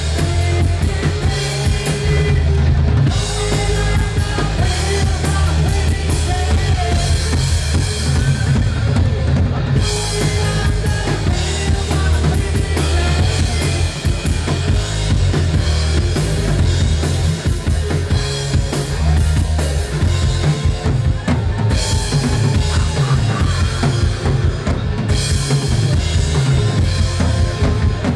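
Live rock band playing loud, with a full drum kit's bass drum and snare driving the beat under electric guitars.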